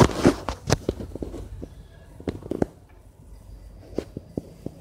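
Scattered knocks and taps of hands handling the wooden rails and parts of a cradle being taken apart, with the loudest knock at the very start.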